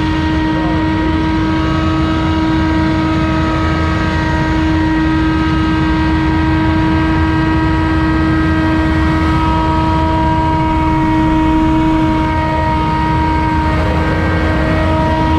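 Commercial lawn equipment running steadily at full throttle, a constant engine drone with a strong steady whine over it.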